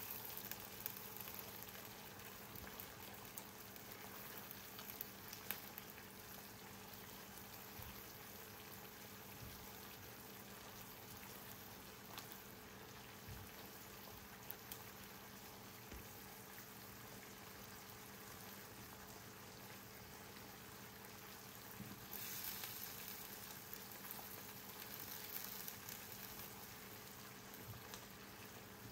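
Chicken pieces in a thick chilli-tomato sauce sizzling and bubbling gently in a frying pan, with a few faint clicks. The sizzling grows louder for a few seconds near the end. A low steady hum runs underneath.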